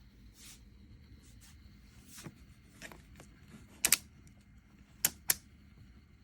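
Several sharp clicks over a low steady hum: a quick loud double click about four seconds in and two more loud clicks near the end.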